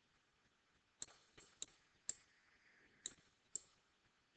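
About six sharp, irregularly spaced clicks of a stylus pen striking a drawing tablet while handwriting digits.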